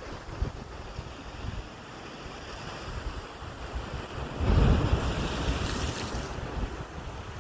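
Wind rushing and buffeting the microphone, swelling into a strong gust about halfway through.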